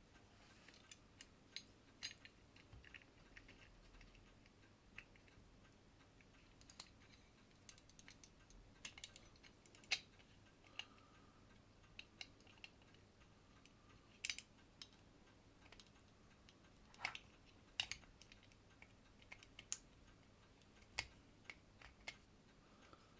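Sparse, irregular light clicks and taps of small watchmaker's tools against an Elgin pocket watch's case and movement as its case screws are taken out.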